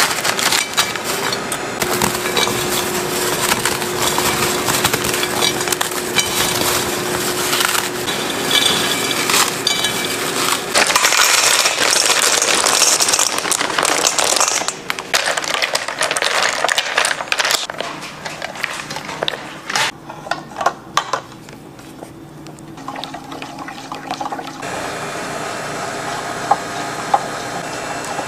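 Lotus Biscoff biscuits clattering and cracking as they tumble into a glass bowl through the first half, then dark chocolate discs clinking against each other and the bowl in sharp separate clicks. Near the end a steady pouring hiss sets in as cream is poured into melted chocolate.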